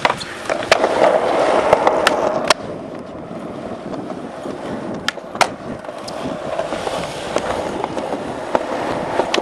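Skateboard wheels rolling on smooth concrete, with sharp clacks of the board hitting the ground: several in the first two and a half seconds, a pair about five seconds in, and one more later. The rolling is louder at first, then drops to a quieter, steady roll.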